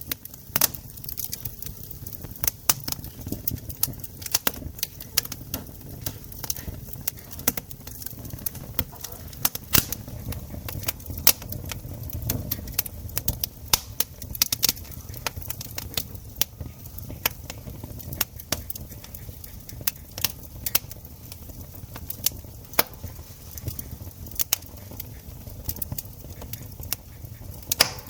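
Wood campfire crackling, with frequent irregular sharp pops and snaps over a low, steady rumble.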